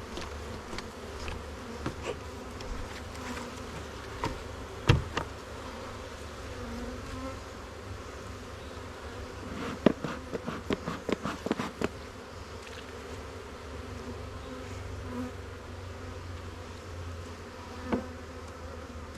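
Honeybees buzzing steadily around an open hive as a nuc colony is moved in. A sharp knock comes about five seconds in, a quick run of knocks and clicks follows about ten seconds in, and one more knock comes near the end.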